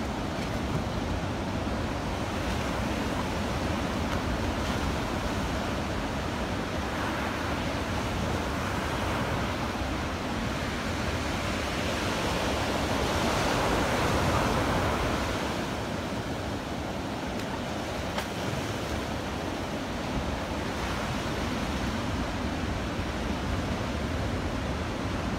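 Ocean surf breaking and washing up a sandy beach in a steady rush, swelling louder about halfway through as a bigger wave comes in.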